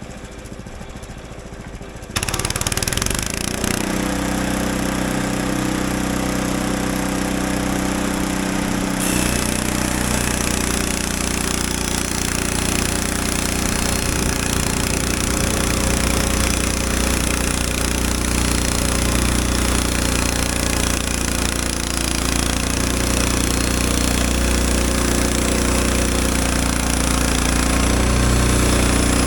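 Frontier OS23 portable band sawmill running and sawing through a pine log as boards are cut. About two seconds in, the sound jumps from a quieter run to a loud, steady engine-and-cutting sound that holds.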